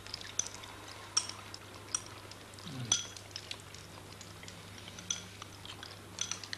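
Chopsticks clicking and clinking against china bowls and plates as several people eat, scattered small clinks over a low steady hum.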